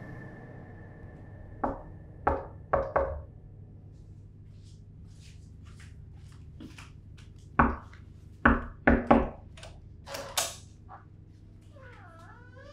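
Knocking on a wooden door: a group of about four knocks, a pause of several seconds, then another group of about four, followed by a couple of fainter knocks. A short wavering squeak comes near the end.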